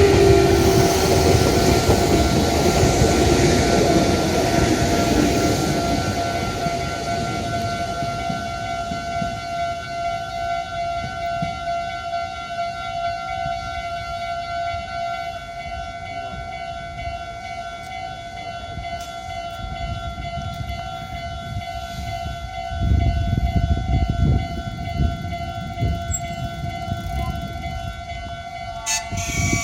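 Japanese level-crossing warning alarm sounding steadily while a train runs past: wheel-and-motor rumble with a falling whine, loudest at first and fading over the first several seconds. A louder spell of low rumble comes about three-quarters of the way through.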